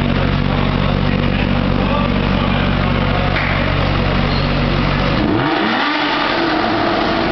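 Sports car engines idling steadily in a concrete parking garage. About five seconds in, one engine revs up sharply.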